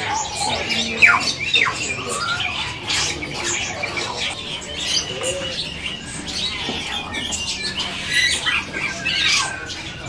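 Many caged songbirds calling over one another: a busy tangle of chirps and squawks, with a few quick falling whistles about a second in.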